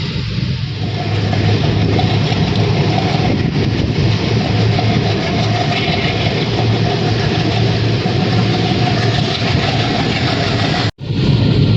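Passenger train in motion, heard from on board: a steady, loud running noise with a low hum underneath. It cuts out suddenly for a moment near the end.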